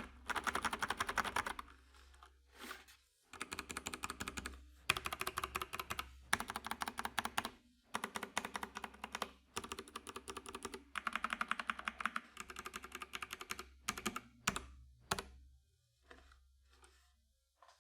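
Mechanical keyboard with Kailh BOX Brown tactile switches, on a bare desk without a mat: keys pressed rapidly over and over in runs of a second or two with short pauses between, ending with a few single clacks.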